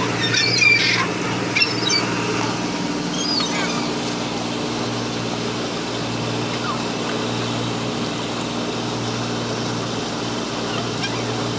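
An engine running steadily at idle, a constant even hum, with a few short high chirps or calls in the first few seconds.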